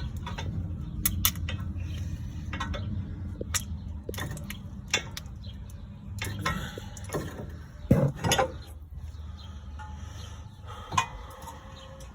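Steel pry bar clinking and knocking against the CV axle's inner joint as it is levered to pop the axle out of the transmission: irregular metallic clicks and knocks, with a louder pair of knocks about eight seconds in, over a low background hum.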